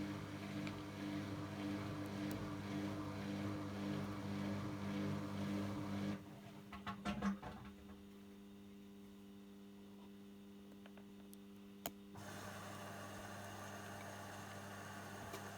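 AEG LS60840L washing machine running early in its wash cycle: a steady hum with a rushing noise. It stops about six seconds in with a few clunks, leaving a quieter hum. A sharp click comes about twelve seconds in, and a steady running noise starts again.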